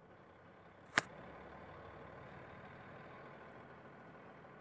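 Diesel engine of an early Odakyu Bus 6000-series city bus running steadily, heard from inside the cabin, with one sharp click about a second in.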